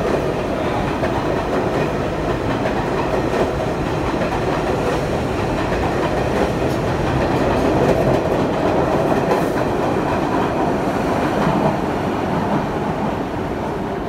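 R62 New York City Subway train passing close by through a station: a steady rumble of wheels on rail, easing slightly near the end as the last car goes by.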